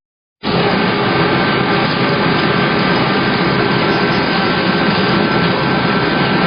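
Grape sorting line machinery running: steady, loud mechanical noise with a faint high whine, as berries travel along the sorting table. The sound cuts in after a brief silence about half a second in.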